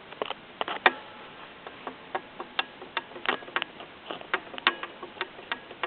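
Irregular metallic clicks and ticks, some with a brief ring, from a damaged T25 turbocharger being worked by hand. It is a bad turbo, and the sound is not good.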